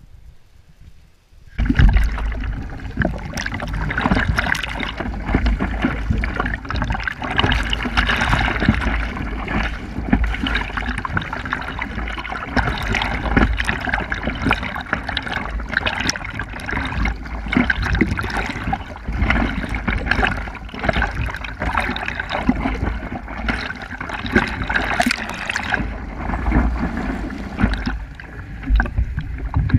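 Water splashing and sloshing right at the microphone as a surfer paddles a surfboard prone through the surf, with many sharp spatters; it starts suddenly about a second and a half in.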